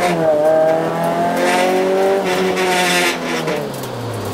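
Toyota AE86 Corolla's four-cylinder engine heard from inside the cabin, held at high revs, with a stretch of tyre squeal in the middle; the revs fall away near the end.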